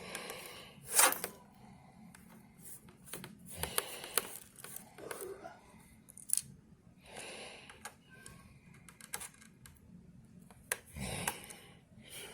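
Small plastic and metal clicks, taps and short scrapes of hands working on a laptop's screen lid and hinge screws, irregular, with the sharpest click about a second in.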